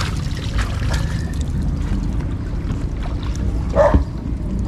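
A dog barking once about four seconds in, with another bark starting at the very end, over a steady low rumble.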